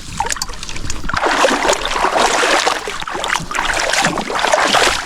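Shallow water splashing and sloshing in uneven surges, with small clicks and knocks, as hands search through it for crawfish.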